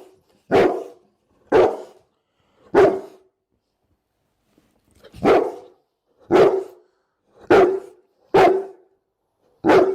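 A Bullmastiff barking in single barks, eight in all, about one a second, with a pause of about two seconds after the third bark.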